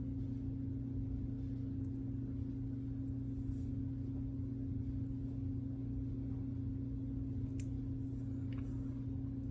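A steady low hum with a higher overtone, under a few faint, sharp clicks of small plastic coupler parts being handled and fitted by hand.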